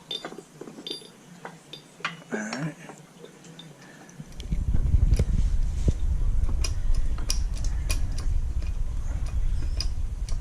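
Small metallic clinks and ticks as the steel bearing and tensioner pulley are handled and set on the shop press. About four seconds in, a steady low rumble starts abruptly and runs on, with scattered metal ticks over it.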